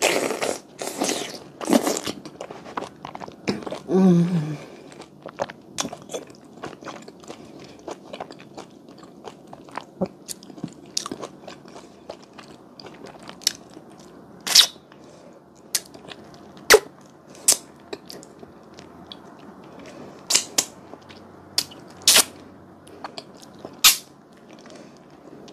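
Close-miked eating sounds of a soft, chewy fruit mochi filled with hallabong citrus: wet bites and chewing at first, and a short hummed 'mmm' about four seconds in. After that, sparse wet clicks and lip smacks, with finger-licking smacks near the end.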